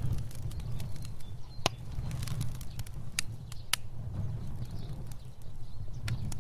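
Fire burning: a steady low rumble of flames with scattered sharp crackles and pops, the loudest about a second and a half in and two more a little after three seconds.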